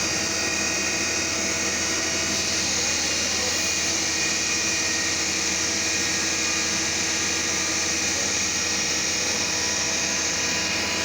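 CNC milling machine running steadily, with a constant spindle whine and hissing cutting noise as it machines a shaft on its fourth, rotary axis.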